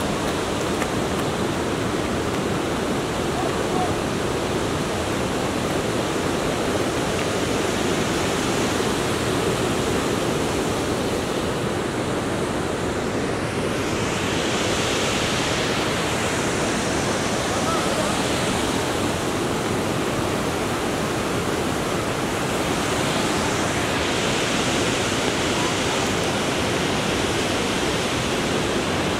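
Waterfall pouring down rock slabs: a steady rush of water that turns brighter and hissier about halfway through.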